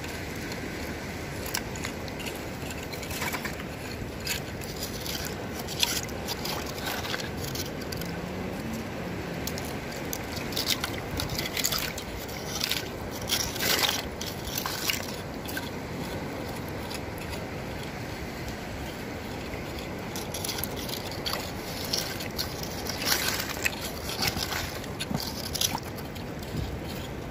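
Digging and scraping by hand in wet sand and stones at the water's edge while gathering shellfish: scattered scrapes, clicks and wet squelches in clusters, over a steady background hiss.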